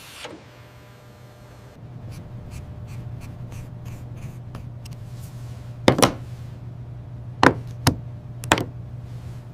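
Hand tool work tightening a bolt: a steady low hum with scattered light ticks, then three sharp knocks about six, seven and a half and eight and a half seconds in.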